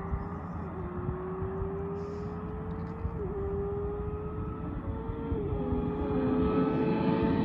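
Suzuki GSX-R1000 superbike's inline-four engine accelerating hard through the gears while still some way off, its note climbing and dipping briefly at each upshift, about three times. It grows louder near the end as it comes closer.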